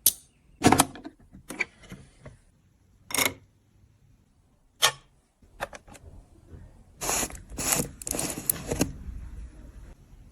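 Cosmetic containers and tools being handled: a few sharp clicks and taps spaced a second or so apart, then about two seconds of scraping and rustling near the end.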